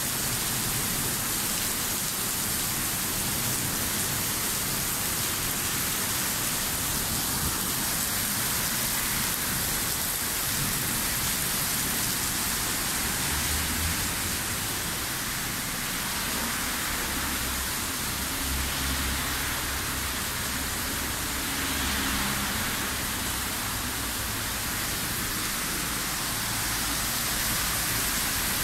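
Heavy rain pouring down in a thunderstorm, a steady hiss, with a low rumble underneath for several seconds around the middle.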